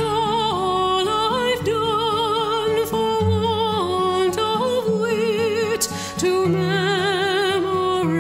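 Background music: a song with a voice holding long, wavering notes in slow phrases over a steady low accompaniment.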